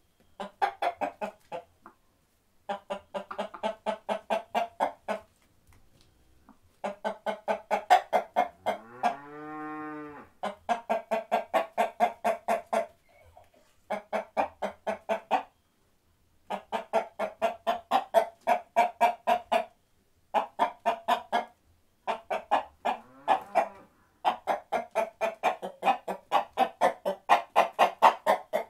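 Chickens clucking in quick runs of about five clucks a second, each run lasting a few seconds with short pauses between. There is one longer call that rises and then falls about nine seconds in.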